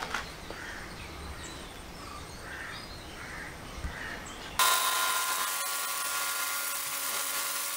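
Quiet rural background with faint bird calls, then about four and a half seconds in a 2000-watt, 130-bar electric pressure washer starts suddenly: a steady motor whine under the loud hiss of the high-pressure jet hitting a wet floor.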